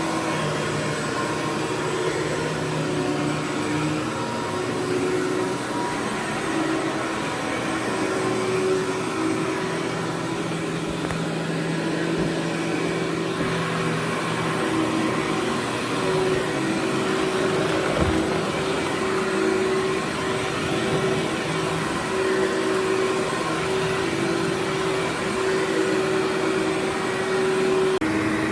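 Workhorse bagless canister vacuum running steadily on its low setting while vacuuming carpet: a constant motor hum with a thin high whine. There is a single small click about 18 seconds in.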